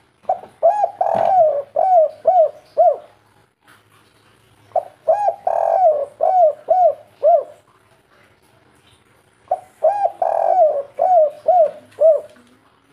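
Spotted dove singing its 'kuk 3' cooing song three times. Each phrase opens with a couple of short coos, then one longer drawn-out coo, then ends on three short coos.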